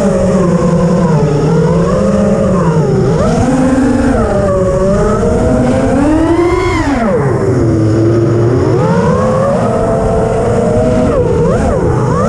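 FPV quadcopter's electric motors and propellers whining, the pitch rising and falling with the throttle; a sharp climb in pitch about six and a half seconds in, then a quick drop.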